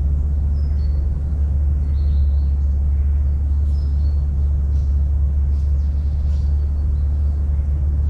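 A steady low rumble, with faint, short, high chirps of small birds scattered through it.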